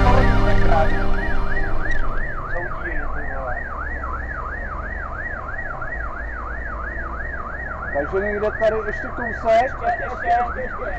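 Fire engine's siren on a fast yelp, about three rising-and-falling wails a second, heard from inside the cab over the steady rumble of the truck's engine. Near the end a few clicks and some lower warbling join in.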